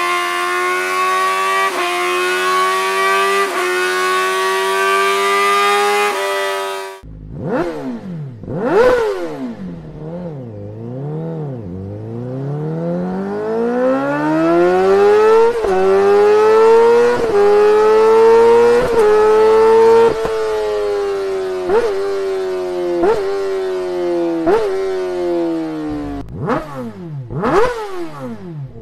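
Honda CBR1000RR-R Fireblade SP's inline-four engine at high revs through its exhaust. First a steady high-rpm run with brief dips, which cuts off suddenly about seven seconds in. Then sharp rev blips, a long rise in revs broken by short steps, revs falling with blips, and more quick blips near the end.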